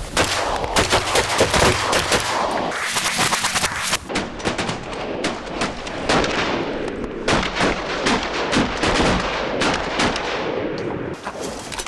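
Rapid, overlapping volley of many shotgun blasts from a group of duck hunters firing into a flock of ducks flushing off the water, the kind of massed volley duck hunters call a 'rain out'. About four seconds in it switches to a second volley that sounds duller.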